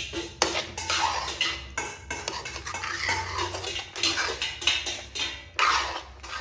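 A metal spatula scraping and stirring thick white-sauce macaroni in a metal kadhai, in repeated strokes against the pan, with a sharp clink about half a second in.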